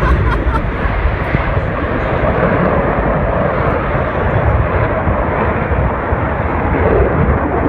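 Steady jet-engine rumble from fighter jets in flight.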